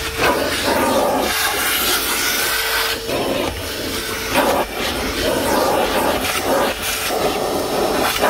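DeWalt 9-gallon, 5 hp wet/dry shop vacuum running and sucking up dirt. The rush of air changes every second or so as the nozzle is worked over surfaces, and the motor's steady tone drops in and out.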